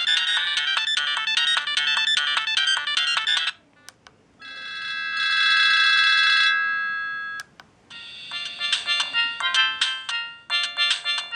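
Siemens A31 mobile phone playing its ringtones one after another through its small speaker. A busy melody cuts off about three and a half seconds in, then a click. Next a single held chord swells and fades, then another click, and a new melody starts about eight seconds in.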